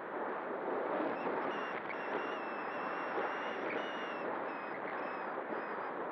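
Rushing airflow over the onboard camera's microphone on an XK A1200 RC glider in flight. A faint high whine from its electric motor steps up and down in pitch through the middle.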